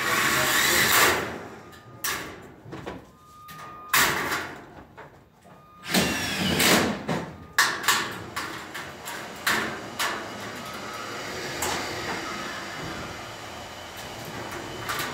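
Light-gauge steel studs and track scraping and clanking as they are handled and pushed through the framing. Several loud scrapes come near the start, about four seconds in and about six seconds in, with sharp metal clicks among them, then a steadier hiss.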